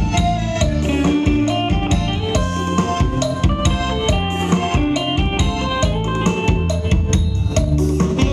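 Khmer dance music: a drum kit with bass drum and snare keeping a steady beat under sustained melodic instrument lines.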